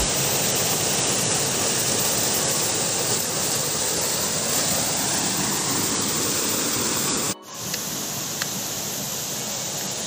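Waterfall pouring down rock in a loud, steady rush of water. About seven seconds in the sound cuts off abruptly, and a quieter steady rushing follows.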